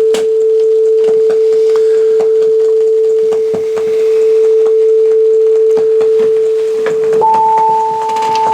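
Steady pure test tone played from a test CD through a Denon DCM-320 CD changer, with a second tone about an octave higher joining about seven seconds in. Crackling clicks run over the tones: noise inside the player's signal, which the owner cannot yet trace, on a player that keeps losing the track.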